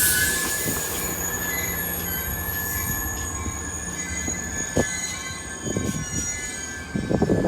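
Train wheels squealing: several steady high-pitched screeching tones over a low rumble. A louder, rougher noise comes in near the end.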